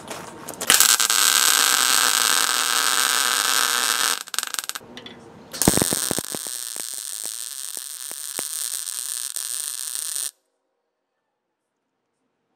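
Wire-feed welder arc sizzling as two weld beads are laid on a steel hitch bracket: one of about three and a half seconds, a short pause, then a second of about five seconds with a few pops as it strikes, which cuts off suddenly.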